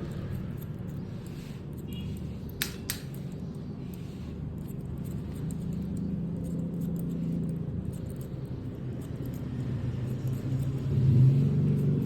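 Electric hair clipper running with a steady low buzz as it cuts hair, louder near the end. Two sharp clicks about two and a half seconds in.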